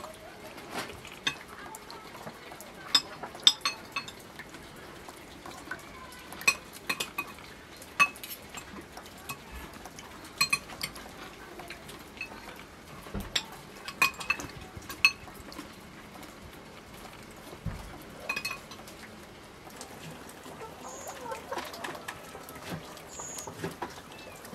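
Metal forks and spoons clinking and scraping against plates as people eat, in irregular sharp clinks that ring briefly. The clinks thin out over the last few seconds.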